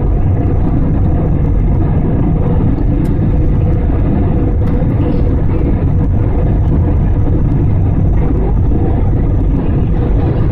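Steady, loud low rumble of an IndiGo Airbus A320-family airliner's jet engines and airflow, with a faint steady hum over it.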